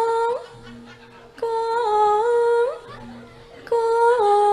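A female sinden, a Javanese gamelan singer, sings into a microphone in long held notes that step and slide between pitches. She sings in three phrases with short breaks between them.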